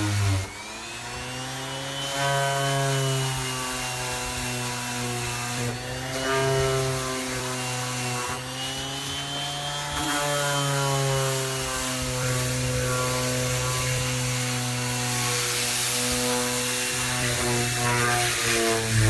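Variable-speed electric sander running on a surfboard, its motor pitch dipping and rising again several times as the speed is varied, making a fluctuating noise.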